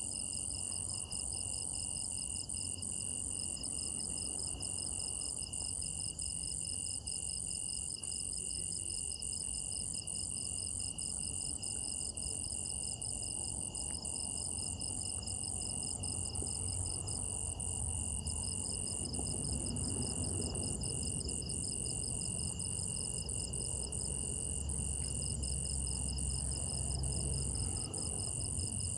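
Night chorus of crickets trilling steadily, several insects at different pitches overlapping, one with a fast pulsing chirp. A low rumble grows in the second half.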